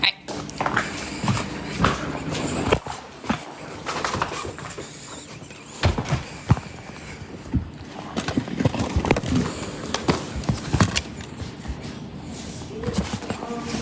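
Irregular knocks and clicks of things being handled and someone moving about.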